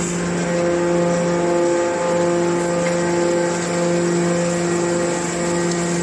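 Hydraulic power unit of a metal scrap baler running with a steady hum, its pitch dipping briefly about two seconds in.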